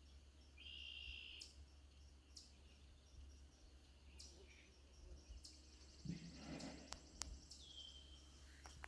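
Faint outdoor nature ambience of scattered bird calls, a short buzzy trill about a second in and a falling whistle near the end, over soft repeating high chirps like insects. A brief soft rustle about six seconds in is followed by two sharp clicks.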